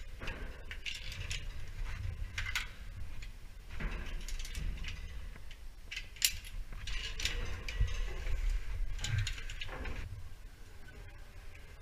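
Scattered metallic clicks and clinks of carabiners and a rope descender being handled on the rope, with handling rustle and a low rumble underneath.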